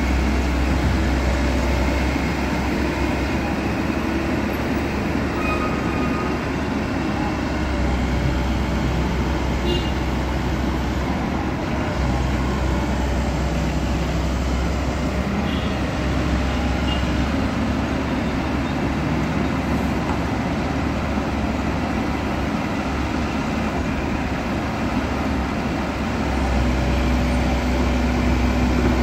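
Komatsu crawler excavator's diesel engine running steadily as the machine works, its low drone rising and falling in level a few times with the load, over a dense background of steady noise.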